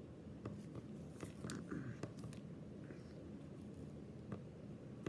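Trading cards and booster-pack wrappers being handled: faint scattered rustles and light clicks over a low steady room hum.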